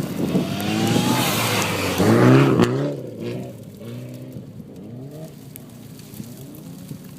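Mitsubishi Lancer Evolution's turbocharged four-cylinder engine revving hard under acceleration, its pitch climbing and dropping again and again. It is loud for about three seconds, then falls much quieter while the pitch keeps rising and dropping.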